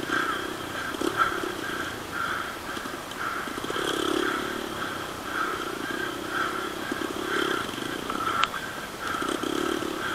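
Off-road motorcycle engines running at a distance, rising and falling about once a second, with a few sharp clicks.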